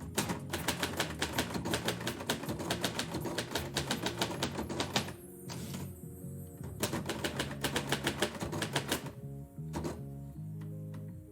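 Typewriter keys striking in rapid runs: a burst of typing lasting about five seconds, a short pause, a second burst of about two seconds, then a single keystroke near the end. Background music plays underneath throughout.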